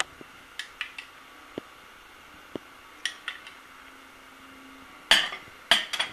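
Metal spoon clinking against a glass bowl and a ceramic plate while yogurt is scooped and spread: scattered light clinks, then a few louder ones near the end.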